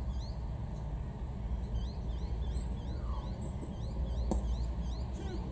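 Birds chirping in a quick, steady run of short chirps with thin high whistles, over a low steady rumble. About four seconds in comes a single sharp knock: a cricket bat striking the ball.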